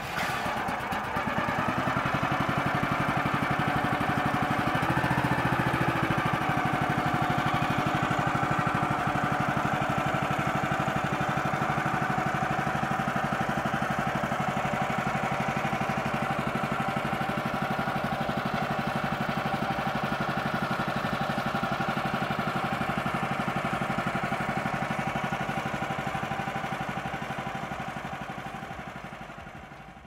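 Kohler gasoline engine of a Woodland Mills HM130 Max sawmill running steadily just after being started, fading out near the end.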